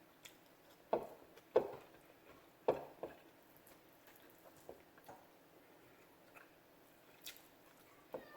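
Faint eating sounds: wet chewing and mouth smacks, with three louder smacks in the first three seconds and softer ones after.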